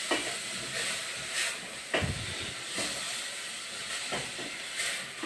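Tomato and onion paste sizzling in hot oil in a pot, a steady hiss, with a few knocks and scrapes of a stirring spoon against the pot; the loudest knock comes about two seconds in.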